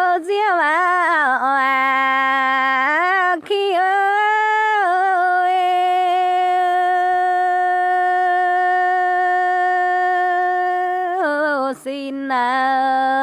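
A woman singing a Dao páo dung folk song unaccompanied: wavering, ornamented notes broken by short breaths, then one long steady held note. Near the end the voice breaks off briefly and settles on a lower held note.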